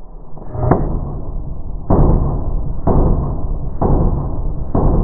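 Pistol shots from a compensated Glock 19, slowed down: five deep, drawn-out booms about a second apart, the first weaker than the rest.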